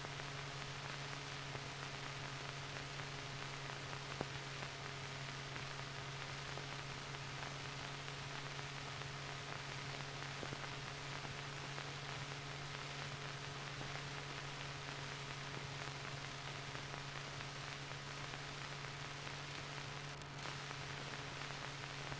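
Steady hiss with a low hum from an old film soundtrack, with one faint click about four seconds in.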